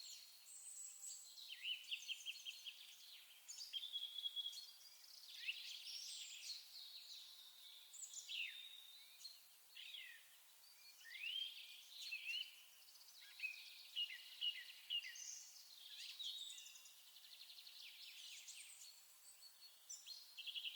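Songbirds singing: a continuous run of varied high chirps, fast trills and sweeping whistled notes.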